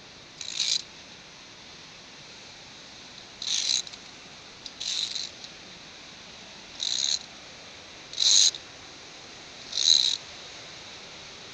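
Steel carabiner sliding along a via ferrata's twisted steel wire cable, giving six short rasping scrapes over a faint steady hiss.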